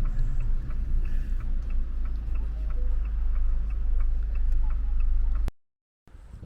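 Low rumble inside a moving car with a car's turn-signal indicator ticking regularly, about three ticks a second. The sound cuts off abruptly about five and a half seconds in.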